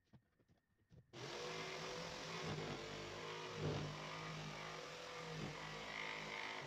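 Handheld electric jigsaw starting about a second in and cutting through an MDF board, running steadily before stopping near the end. A few light handling clicks come before it starts.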